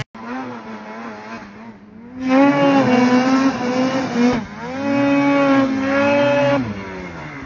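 Snowmobile engines revving hard, the pitch rising and dipping again and again as the throttle is worked. A fainter sled runs for the first two seconds, then a much louder, closer one takes over.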